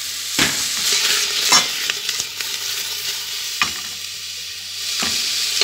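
Quartered onions sizzling loudly in hot caramelized sugar at the bottom of a pressure cooker pot, frying hard over high heat. A few sharp knocks as they are stirred.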